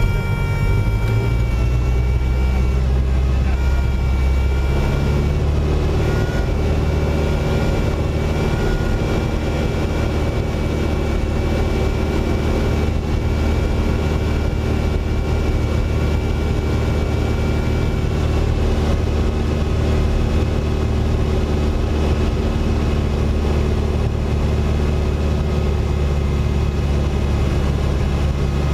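Single-engine floatplane's piston engine and propeller running at low power while taxiing on the water, heard from inside the cockpit. A steady drone that shifts slightly in pitch about five seconds in.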